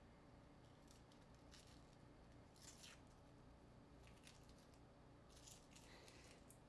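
Faint, short rustling scrapes of old, perished adhesive tape being peeled off a phone by hand, several times, the loudest about three seconds in.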